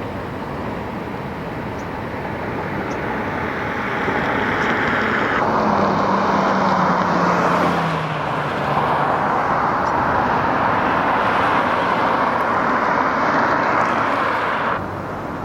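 Road traffic going by: a steady rush of tyre and engine noise that swells about four seconds in. One vehicle's engine hum drops slightly in pitch as it passes. The rush drops off suddenly near the end.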